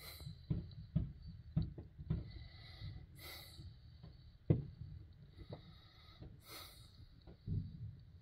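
Fireworks going off at a distance: a string of irregular, low bangs and thuds, the sharpest about halfway through, with a few short bursts of hiss between them.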